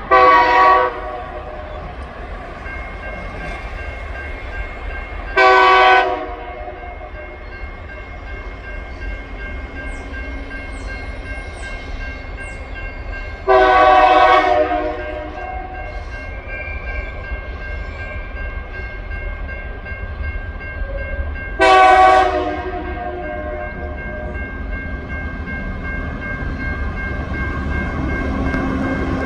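Diesel locomotive horn from TasRail's TR11, four blasts several seconds apart as a warning for the level crossing; the third blast is the longest. The train's rumble grows louder toward the end as it nears.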